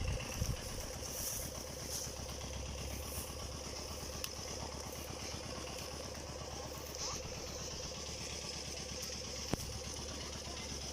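Kubota DC105X combine harvester's diesel engine idling steadily and smoothly, a machine with over 1,600 hours on it. A single sharp click near the end.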